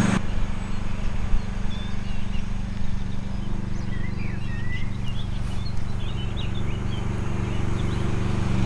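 Riding lawn mower engine running with a steady hum, while small birds chirp briefly in the middle.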